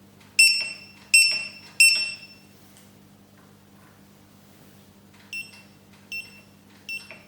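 Segway Ninebot F-series scooter's board buzzer beeping: three loud high beeps in quick succession, then after a pause of about three seconds three much quieter beeps of the same pitch, muffled by a finger held over the buzzer's sound hole.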